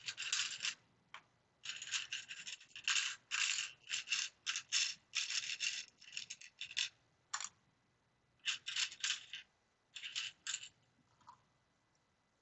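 Loose plastic LEGO pieces rattling and clattering as hands sort through them, in many short bursts that stop about ten and a half seconds in.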